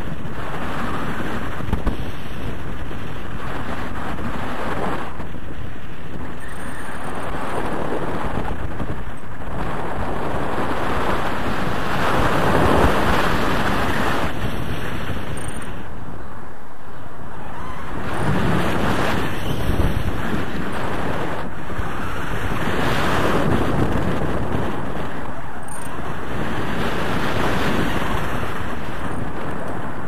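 Loud wind rushing over a camera microphone in a tandem paraglider's flight airflow, swelling and easing every few seconds.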